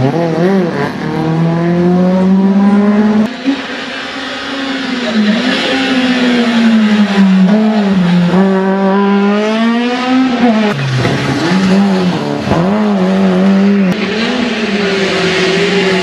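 Rally car engines at full throttle passing one after another, the engine note climbing and dropping with gear changes and lifts. The sound changes abruptly at each new car.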